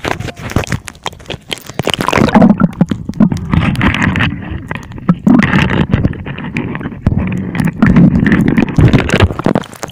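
Seawater sloshing and gurgling over the microphone of a camera held just under the surface in shallow water, with irregular muffled knocks and splashes.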